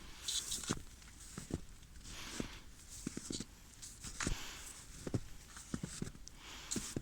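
Footsteps crunching over a rough, crackly surface, about one step a second, with scattered low knocks between them.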